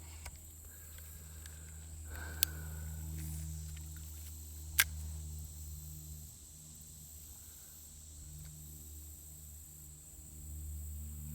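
Quiet outdoor ambience with a steady low hum and a thin steady high tone, broken by two sharp clicks about two and a half seconds apart, the second louder.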